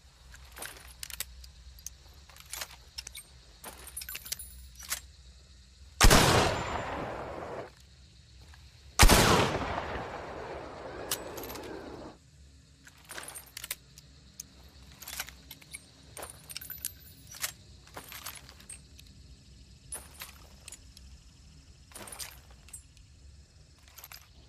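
Two rifle shots about three seconds apart, each a sharp crack followed by a long echoing decay. Light metallic clicks and rattles come before, between and after them.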